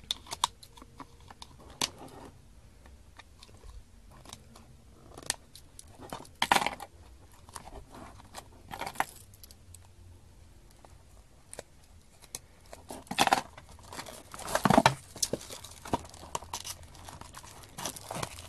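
Plastic shrink wrap on a DVD case being snipped with small thread snips, then torn and peeled away: irregular crinkles, snaps and small clicks, with the loudest bursts of crinkling in the second half.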